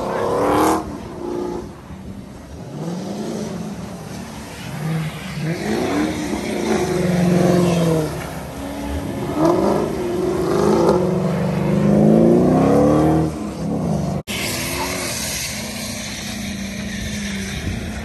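Car engines revving hard again and again as cars are drifted, the pitch climbing and falling with each blip of the throttle. After a sudden break about two-thirds of the way in, a steadier engine drone continues under a hiss.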